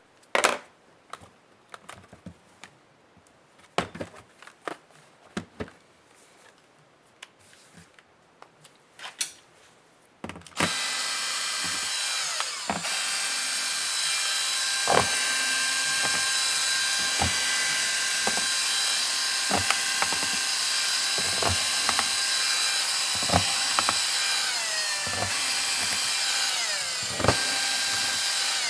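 Scattered light clicks and taps of small parts and tools being handled. About ten seconds in, a small power tool's motor, such as an electric screwdriver, starts and runs steadily with a whine, its pitch dipping briefly near the end, as clicks and taps go on over it.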